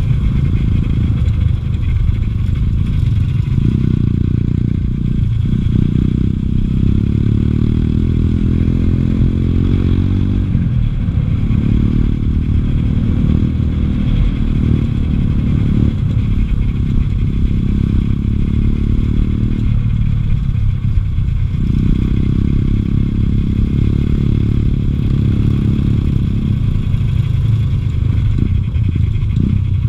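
A Bosuer 250cc dirt bike's single-cylinder four-stroke engine running under load while riding, its pitch rising and falling with the throttle. It eases off briefly about ten seconds in and again about twenty seconds in.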